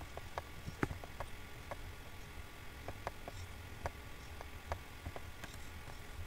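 Computer mouse clicking, irregular sharp clicks a couple of times a second, over a low steady hum.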